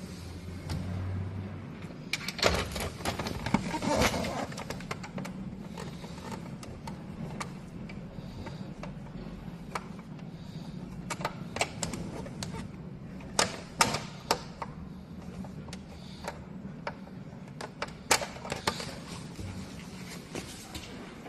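Scattered clicks and knocks of parts and tools being handled, in clusters a few seconds apart, over a steady low hum.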